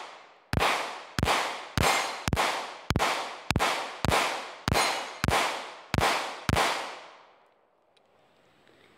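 Taurus PT111 Millennium G2 9mm pistol firing eleven shots in steady rapid succession, about two a second, each shot followed by a short ringing echo. The shots stop about seven seconds in. The pistol cycles the steel-cased ammunition without a malfunction.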